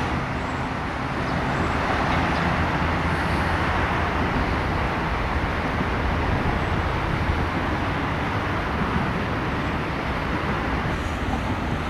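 Steady hum of road traffic, cars and a van passing, mixed with an electric commuter train running along beside the road.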